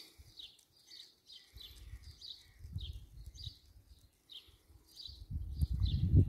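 A small bird chirping over and over, short high calls about two a second. A low gusty rumble of wind on the microphone comes and goes and grows stronger near the end.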